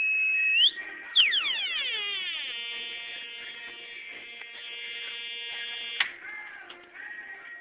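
Two-555-timer siren synthesizer on a breadboard sounding: a high steady tone that sweeps upward, then a buzzy tone gliding down in pitch and settling on a steady low buzz, which cuts off suddenly about six seconds in.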